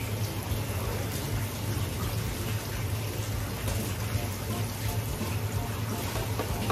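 Water running steadily, as from a tap, over a steady low hum.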